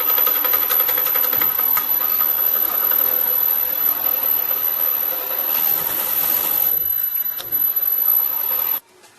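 A tool or small machine running steadily with a hissing noise, cutting off suddenly near the end.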